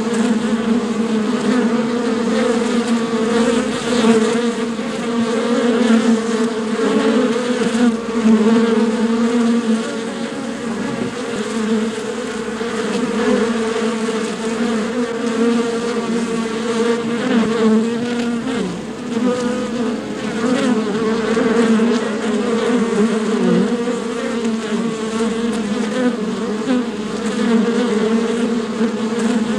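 Many bees buzzing together, a continuous droning hum whose pitch wavers slightly as the insects fly about.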